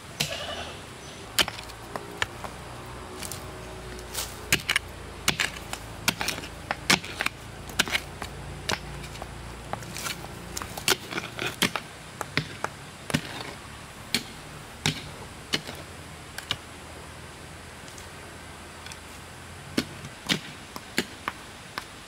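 A run of irregular sharp knocks and clicks, thickest in the middle and with a few more near the end, over a low rumble that fades out about halfway through.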